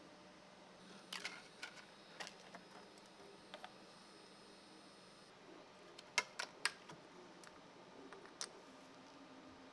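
Light, scattered clicks and taps of small 3D-printed plastic parts being handled, with a quick run of sharper clicks about six seconds in, over a faint steady hum.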